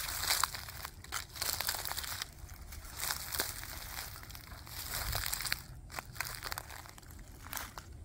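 Footsteps in sneakers crunching and crackling through dry fallen leaves, twigs and acorns, one step about every second.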